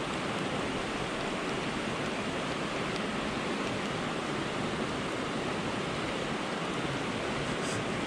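Steady rush of flowing water from a mountain stream running over rocks.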